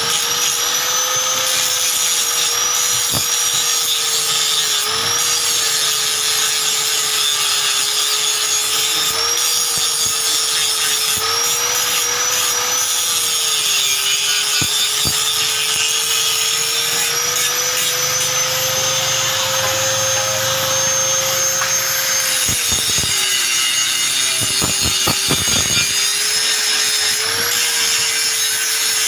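Electric motor-driven tool running continuously with a rasping, scraping noise; its pitch sags and recovers several times as the load comes and goes, with a brief string of clicks about three quarters of the way through.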